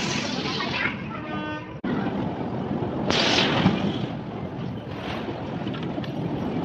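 Electric bumper cars running around the arena floor: a steady rumbling noise, with a short horn-like tone about a second in.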